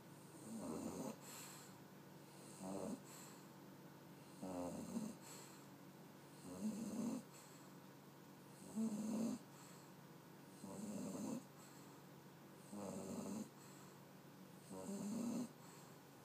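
English Bulldog puppy snoring in a steady rhythm: a rattling snore about every two seconds, each followed by a soft hiss.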